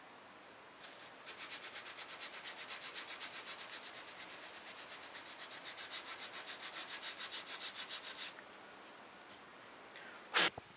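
Hand sanding a freshly glued wood veneer patch with a small sanding block: quick, even back-and-forth strokes, about five a second, for several seconds. Near the end comes a single short, sharp knock.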